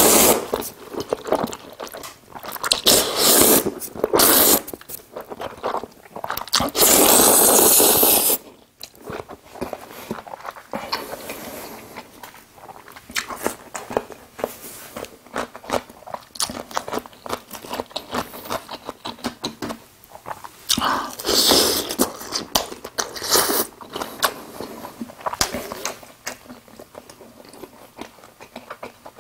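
Close-miked eating of jajangmyeon: black-bean-sauce noodles slurped in several long, loud pulls, the longest about two seconds, then steady chewing with many small wet clicks and crunches. More slurps come about three-quarters of the way through.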